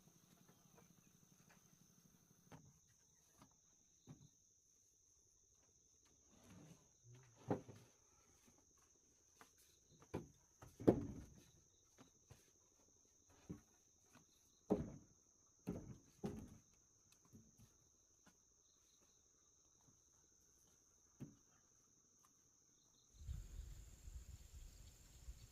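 Steady high-pitched insect drone, with scattered knocks and thuds from about a third of the way in; near the end a low rumbling noise comes in.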